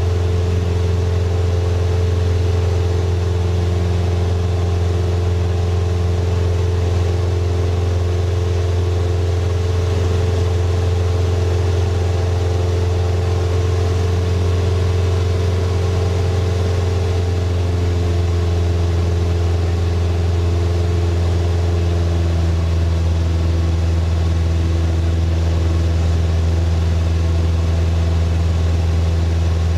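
Single-engine floatplane's engine and propeller droning steadily in cruise flight, heard inside the cabin. Its higher tones drop slightly in pitch about two-thirds of the way through.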